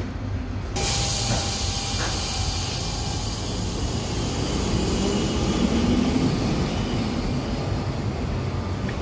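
Tram running with a low rumble, joined about a second in by a sudden, sustained hiss.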